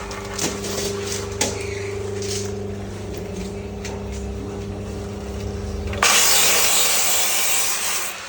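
Workshop machinery running with a steady electric hum and a few light clicks. About six seconds in, a loud hiss starts suddenly and fades away over the next two seconds.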